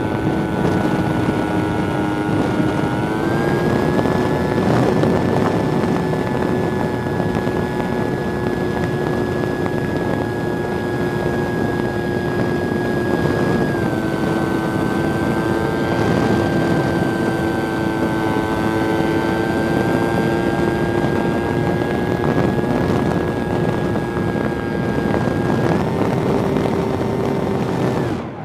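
Motor and propeller of a small RC 3D-flight plane, heard from the camera on board, running with a steady whine over wind rushing on the microphone. The pitch steps up about three seconds in, dips slightly around the middle, and rises again near the end.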